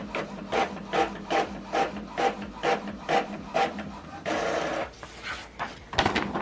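Epson WF-2910DWF inkjet printer printing a test page: the print head carriage sweeps back and forth in a regular rhythm of about two passes a second. About four seconds in there is a short steady whir, and near the end a sharp click.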